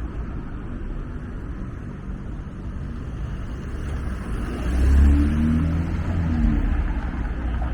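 City street traffic at a busy intersection. A motor vehicle passes close, its low rumble swelling to the loudest point about five seconds in, then fading.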